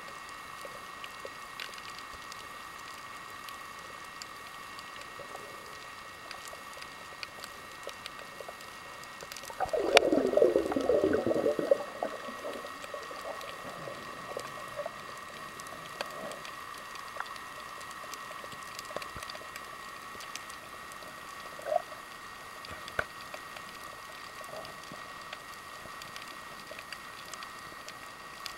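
Underwater sound: a steady two-note hum with scattered faint clicks and crackles, and about ten seconds in a loud gurgling rush of air bubbles lasting about two seconds.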